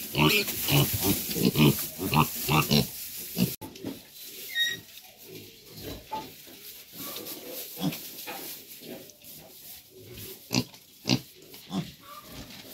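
Piglets grunting in quick succession for the first three seconds or so, then dropping off abruptly to a quieter stretch with occasional single grunts.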